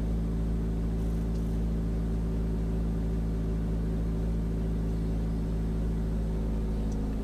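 Peugeot car's engine heard from inside the cabin, a steady hum held at even revs of about 1,500 to 2,250 rpm while the clutch is let up slowly to pull away in first gear.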